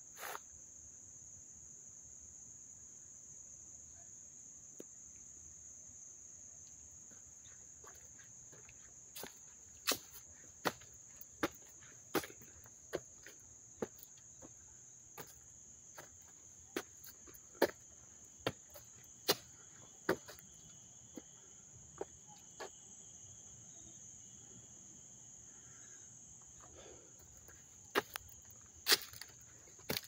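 Crickets chirping in one continuous high-pitched trill, with a second, lower trill joining for a stretch in the middle. Footsteps on a paved path sound about once a second from about a third of the way in, stopping for a few seconds before the end.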